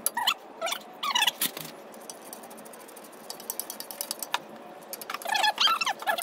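Ratchet wrench clicking and metal clinks while the front brake caliper bracket bolts are fitted, with a quick run of fine clicks a little past the middle. Short high squeaky chirps near the end are the loudest sound.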